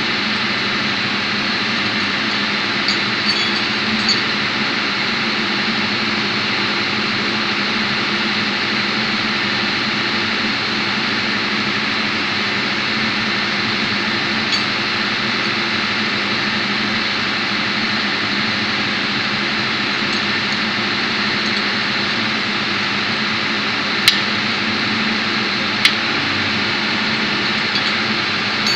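Steady drone of running engine-room machinery, with a few short sharp metallic clicks or taps, a few seconds in and twice more near the end.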